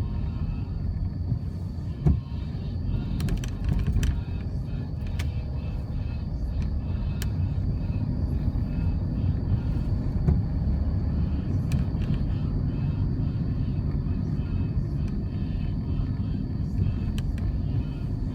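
Road vehicle noise: a steady low rumble of driving or passing traffic, with a few brief clicks.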